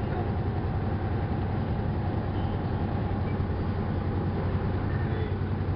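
Truck engine and tyre noise at freeway speed, heard inside the cab: a steady drone with a low hum running under it.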